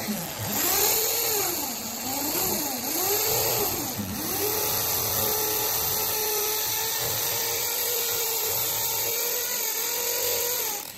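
Electric drill boring into a concrete ceiling slab, its bit turning inside a plastic bottle taped on as a dust catcher. The motor's pitch rises and falls several times as the bit bites, then runs steady until the drill stops at the end.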